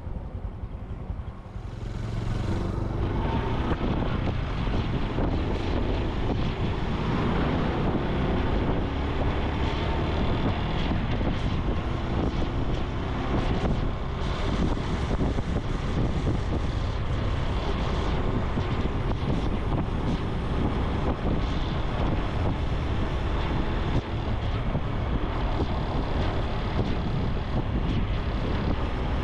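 Honda Super Cub C125's single-cylinder four-stroke engine running as the bike rides along, with wind buffeting the microphone. The sound gets louder about two seconds in and then stays steady.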